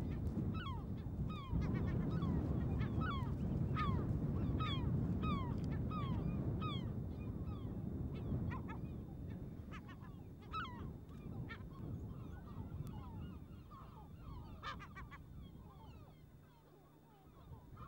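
Birds calling in a run of short, downward-sliding honking calls, about two a second at first, then sparser and fainter in the second half, over a low rumble that fades away.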